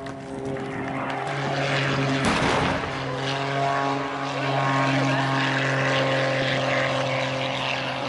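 Piston-engine propeller aircraft running steadily through a low pass, its drone shifting slightly in pitch just after a second in. About two seconds in, a brief loud rush of noise comes from pyrotechnic fireballs going off.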